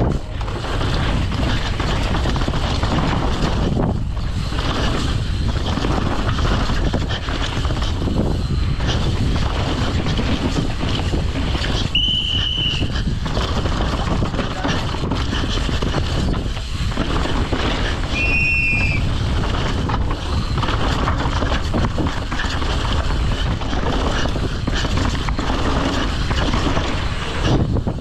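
Mountain bike being ridden: a steady rush of wind on the microphone with rolling noise from the bike. A brief high squeal comes twice, about twelve and about eighteen seconds in.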